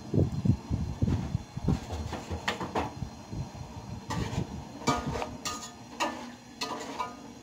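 Slotted metal spoon scraping and clinking against a steel cooking pot as sliced onions are stirred in oil, in a string of short strokes, some of them briefly ringing. A few low thumps come in the first second or two.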